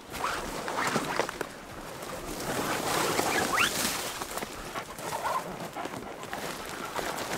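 Leafy aspen saplings rustling and swishing against the pack goats' panniers and the hiker as they push uphill through dense brush, with scuffing footsteps on the trail. A short high rising chirp sounds about three and a half seconds in.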